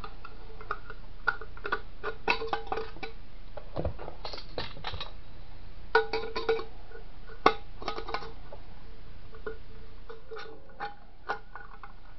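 Scissors cutting around the thin metal wall of a coffee tin: a run of irregular metallic snips and clicks, several followed by a short ringing of the can.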